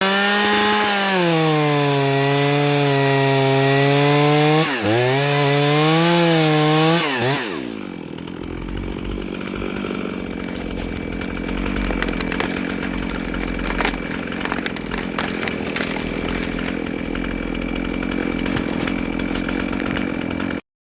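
Two-stroke chainsaw run at high revs for a hinge cut, its pitch rising and falling with the cut for about seven seconds, then dropping back to a low idle with scattered crackles.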